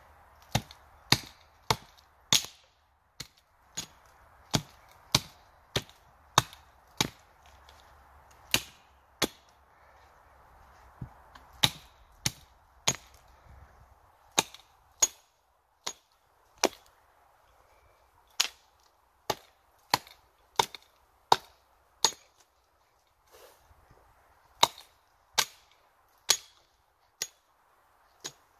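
Hatchet chopping along an upright wooden pole. Sharp, cracking blows come in runs, roughly one to two a second, with short pauses between runs.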